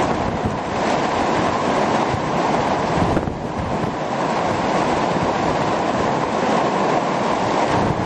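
Torrential rain pouring down on a street, with strong wind buffeting the microphone; a steady, loud rush that dips briefly about three seconds in.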